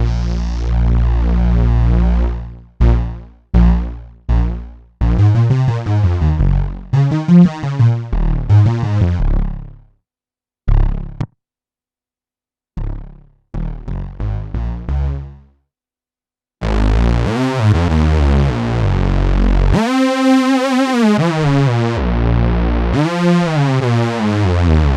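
Omnisphere 3 software synthesizer bass patches played on a keyboard: a held low note, then a run of short stabs with brief silences between, then a heavy sustained bass sound whose pitch bends up and back down twice near the end.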